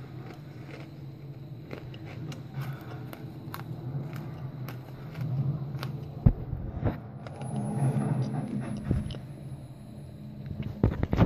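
Handling noise from a phone held close to a wooden floor: rubbing and several sharp knocks, the loudest about six seconds in and at the very end, over a low steady hum.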